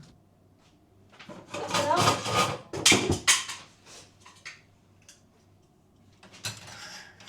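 Handling noise from small objects being moved about: a sharp click at the start, then a clattering, scraping stretch for about two seconds, and softer rustling near the end.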